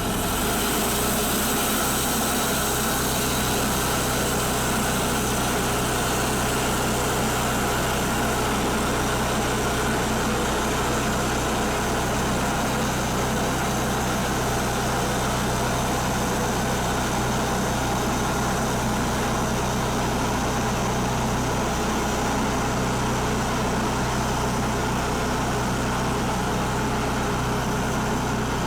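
Sawmill engine running steadily under load while the saw cuts boards from a red oak log.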